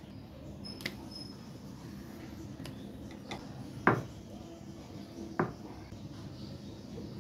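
A metal spoon knocking twice against a glass bowl while scooping out paste, each knock sharp with a short ring, about four and five and a half seconds in. A few lighter clicks of utensils come before them, over a faint steady hum.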